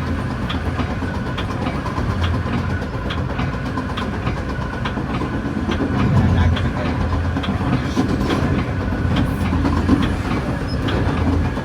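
Metra commuter train running along the track: a steady low rumble with repeated clicks of the wheels passing over rail joints.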